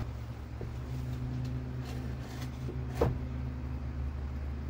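A wooden 2x3 board knocks once against the ceiling about three seconds in as it is held up into place, over a steady low hum.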